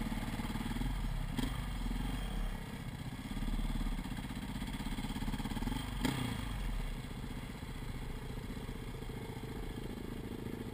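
KTM off-road motorcycle engine running at low speed on a dirt track, with two sharp knocks from the bike jolting over bumps. The engine eases off about two-thirds of the way through as the bike slows.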